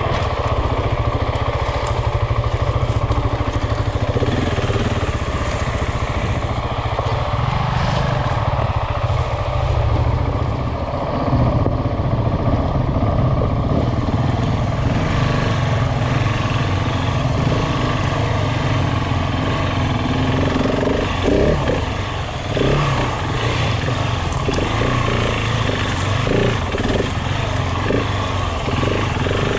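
Single-cylinder engine of a KTM 690 Enduro motorcycle running on the move, its note rising and easing with the throttle, with a brief drop about 22 seconds in.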